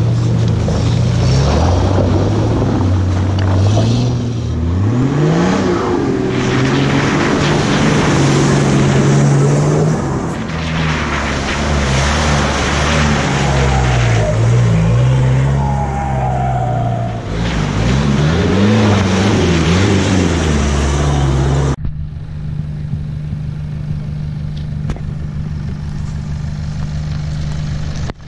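Off-road 4WD engine revving up and down several times as it works the vehicle along the trail, over a rushing noise. About 22 s in, the sound changes abruptly to a steadier, duller engine note.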